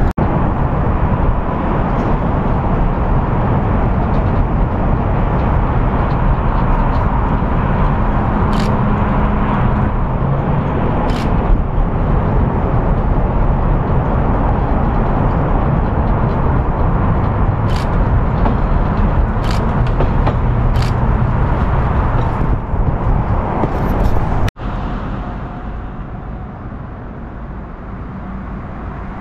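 Steady outdoor rumble of road traffic, with a few sharp clicks scattered through it. About three-quarters of the way through it cuts to a quieter, steady hum.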